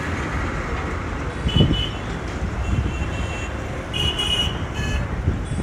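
WDM3A diesel locomotive's ALCO 16-cylinder engine idling with a steady low rumble, with a few short high-pitched beeps over it, the brightest about four seconds in.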